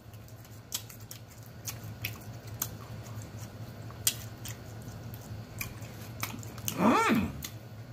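A man chewing cheesy fries close to the microphone: wet mouth smacks and clicks at irregular intervals over a steady low hum. Near the end comes a short hummed "mmm" that rises and falls in pitch, the loudest sound in the stretch.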